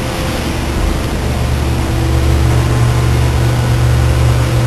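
Steady low machinery drone with a few faint steady tones above it, growing a little louder about two seconds in.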